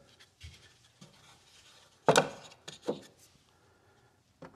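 3D-printed PLA trays and dial indicators being handled and set down in a toolbox drawer: several knocks and clatters with light rubbing between, the loudest about two seconds in.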